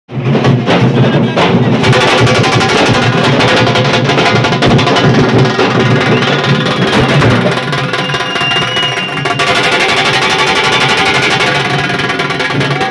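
A Nashik dhol party's many large dhol drums played together, loud and continuous, in a fast, dense rhythm of strokes.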